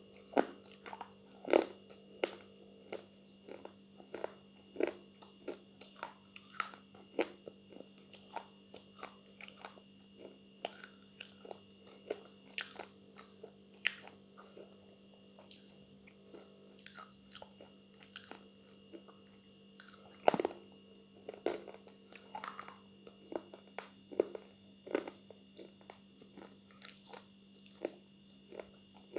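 A person biting and chewing something hard and brittle, sharp crunches coming one to two times a second, the loudest about twenty seconds in. A steady electrical hum runs underneath.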